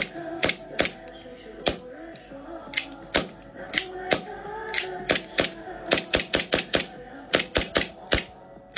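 All-metal toy M1911 pistol being worked by hand: a quick, irregular run of sharp metal clacks from the slide racking and the hammer and trigger snapping.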